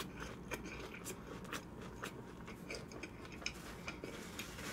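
A person chewing a full mouthful of food with the mouth closed, picked up by a close microphone: soft, scattered wet clicks and smacks.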